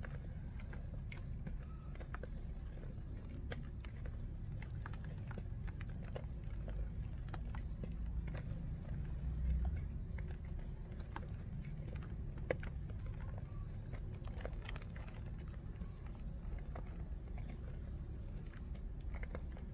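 Dry multani mitti (fuller's earth clay) crunching and crumbling, in small scattered crackles over a steady low rumble. There is a louder low bump about nine and a half seconds in and a sharp crack about three seconds later.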